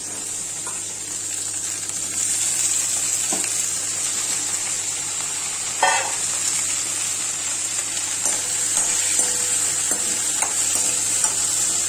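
Quartered brinjals (eggplants) sizzling steadily as they fry in sesame oil in a pan. There is a single louder knock about six seconds in and a few faint clicks later.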